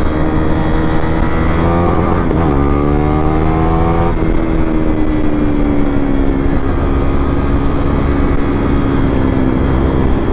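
Motorcycle engine accelerating hard: the revs climb, break with a gear change about two seconds in, climb again, then drop back about four seconds in and hold nearly steady.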